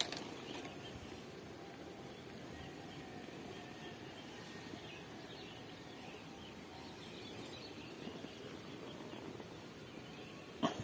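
Quiet rural outdoor ambience with faint bird calls, and a sharp click near the end.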